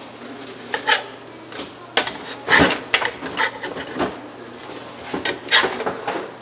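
A spatula scraping and knocking against a pancake pan while turning pancakes: a run of short clicks and scrapes, the loudest about two and a half seconds in and again near the end, over a low steady hum.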